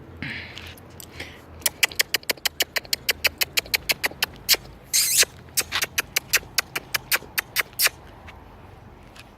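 A quick run of sharp clicks, about four a second for some six seconds, close and loud, with a short hiss in the middle.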